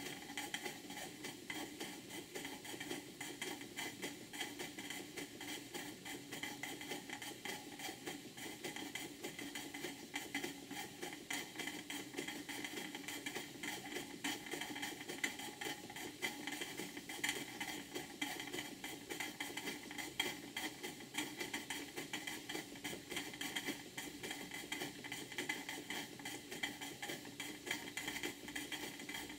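A model steam plant running under steam, a hypocycloidal engine and a Vulcan beam engine turning together. They make a fast, even ticking and clatter over a steady hiss.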